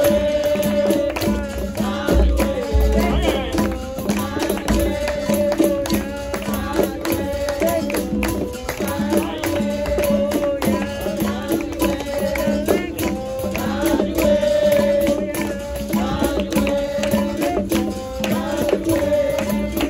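Capoeira roda music: a berimbau-led percussion ensemble playing a steady rhythm while voices sing over it.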